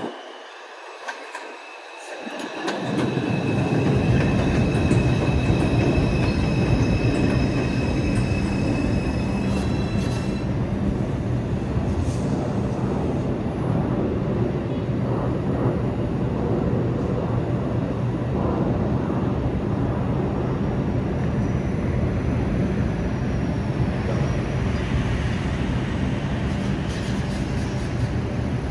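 New York City subway train running along the track: a loud steady rumble of wheels on rails that builds up over the first three seconds and holds, with high steady squealing tones over it for about the first ten seconds.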